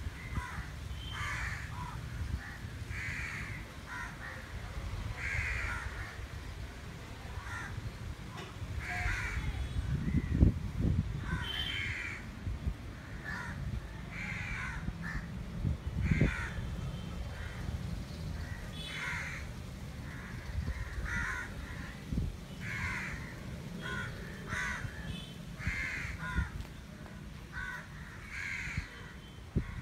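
Crows cawing over and over, a call about every second, over a low steady rumble. A dull thump about ten seconds in is the loudest moment.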